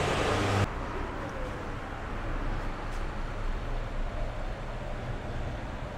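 Steady background hum of distant road traffic. A louder stretch cuts off abruptly under a second in, and the steady hum carries on after it.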